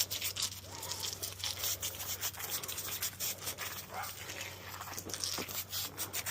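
Foaming coil cleaner fizzing and crackling as it sits on a dirty HVAC blower wheel: a rapid, irregular crackle over a steady hiss, with a low hum underneath and a few brief squeaks.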